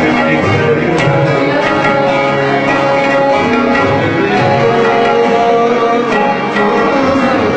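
Tabla drumming, a run of sharp strokes, accompanying held melody notes in South Asian music.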